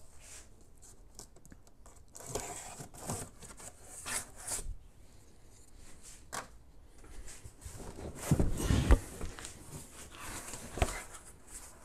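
A large cardboard shipping box being opened and handled: tape slit and torn, cardboard scraping and sliding on the bench, with scattered clicks and knocks. The heaviest bump comes about eight to nine seconds in, as the box is shifted and turned.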